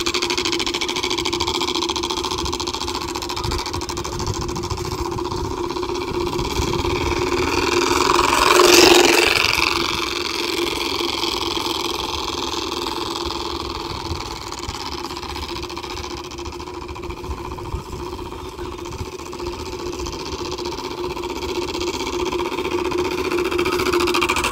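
Homemade plastic-bottle 'exhaust' on a ridden bicycle, with bottle caps inside it, rattling in a steady fast buzz meant to imitate a Royal Enfield Bullet's exhaust; the maker calls it strong and Bullet-like. It swells loudest about nine seconds in and grows louder again near the end as the bike comes close.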